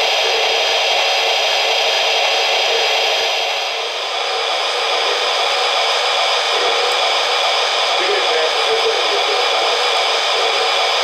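Lionel S2 steam-turbine model's onboard sound system (Legacy RailSounds) playing the locomotive's standing turbine sound through its small speaker: a steady hissing whine that turns brighter about four seconds in.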